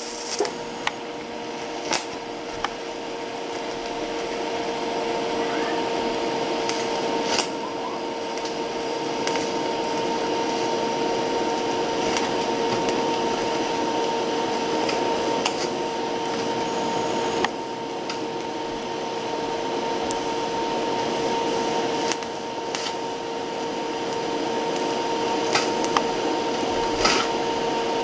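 TIG welding arc running with a steady high-pitched buzz over a hiss, broken by a few sharp crackles.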